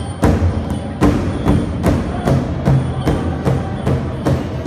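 Powwow drum group beating a large drum in unison, a steady pulse of about two to three strokes a second, each stroke ringing in the hall.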